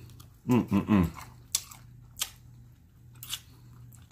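A man eating fried chicken wings gives three quick falling "mmm" hums of enjoyment about half a second in. Then come a few sharp wet mouth smacks and clicks as he chews and works the meat off the bone with his fingers.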